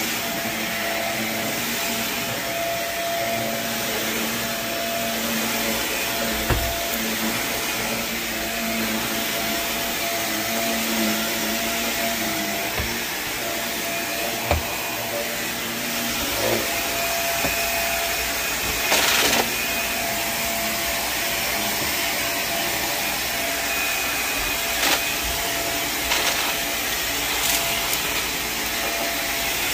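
Carpet steam-cleaning (hot-water extraction) machine's vacuum running steadily, with a few short knocks along the way.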